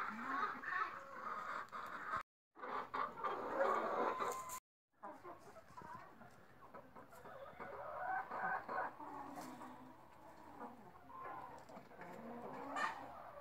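Hens clucking quietly on and off, in short low calls.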